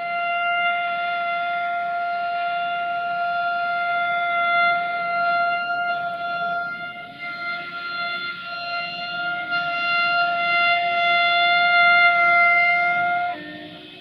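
Air horn of an LDE2100 (060-DA) diesel-electric freight locomotive sounding one long, steady note. It wavers briefly near the middle, swells toward the end and cuts off sharply just before the end.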